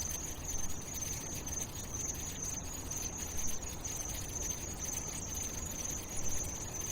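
Steady ambient background noise with a continuous high-pitched buzz, like insects, over a low rumble.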